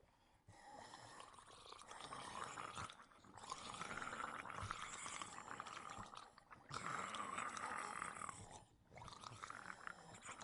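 Faint wet squelching and slurping, a zombie flesh-eating sound effect, in about four stretches of a couple of seconds each with short gaps between them.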